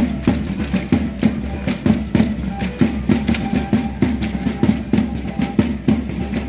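Matachines dance music: a quick, even percussion beat of sharp strokes, about four to five a second, with a thin melody line over it.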